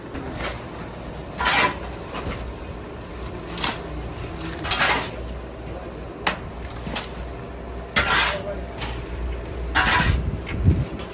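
Hot sand being stirred in a large metal pan with a metal scoop: irregular scraping swishes every second or two, with light clinks of metal on metal.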